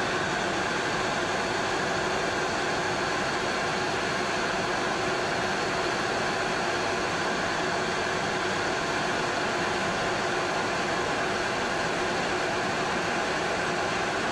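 Steady machinery noise of a running carbon-fibre fabric stitching machine in a factory hall: an even hiss with a faint, constant hum.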